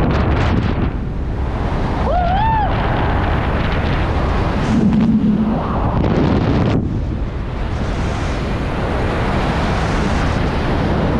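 Loud, steady wind rushing over the camera's microphone as a speed-flying wing flies fast close to a cliff. About two seconds in, a brief rising, wavering tone sounds over the wind.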